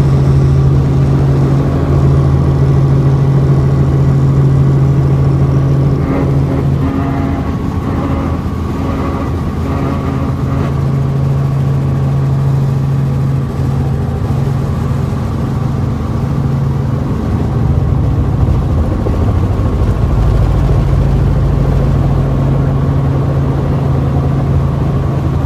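Helicopter engine and rotor running with a loud, steady low hum, heard from inside the cabin as the helicopter comes down low over a grass field to land.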